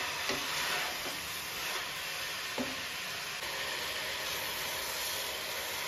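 Marinated chicken sizzling steadily as it fries in an open pressure cooker, with a few scrapes as it is stirred.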